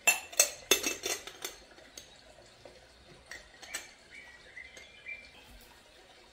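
Metal cutlery and crockery clinking: a quick run of about six sharp clinks with a short ring, then a few fainter clinks a couple of seconds later.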